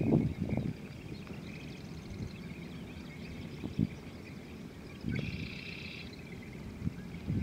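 Outdoor ambience with birds chirping steadily, one call standing out about five seconds in. A few short, dull low thumps come and go, the strongest right at the start.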